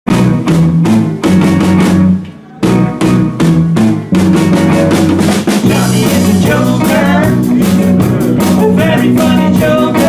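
Live rock band playing electric guitars and a drum kit to a steady beat, with a short break about two seconds in. A man's singing joins about halfway through.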